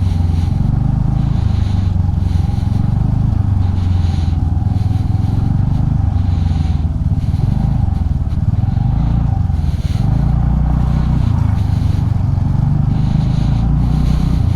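Motorcycle engine running steadily at low speed while the bike is ridden slowly over a muddy, slippery road.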